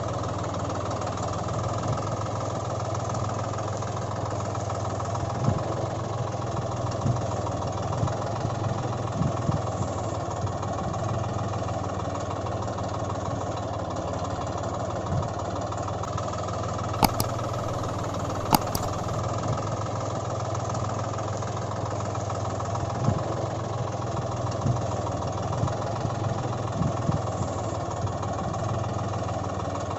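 Tractor engine sound running steadily at idle, with a few sharp clicks near the middle.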